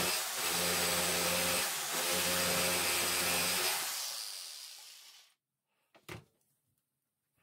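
Electric jigsaw (saber saw) running as it cuts through a hardwood board, dipping briefly twice, then switched off with its motor winding down over about a second and a half. A single light knock follows near the end.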